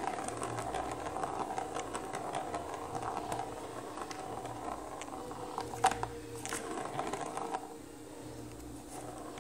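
A plastic ball rolling and rattling around the track of a round cardboard cat scratcher toy as a kitten bats it. Sharp clicks and knocks come as paws strike the plastic ring and the spring-mounted feather wand, the loudest about six seconds in.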